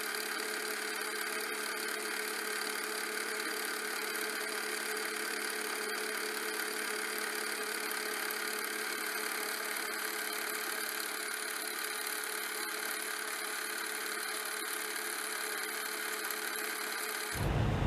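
Steady, unchanging whir of a running Super 8 film mechanism. It cuts off abruptly near the end, giving way to a low rumbling ambience.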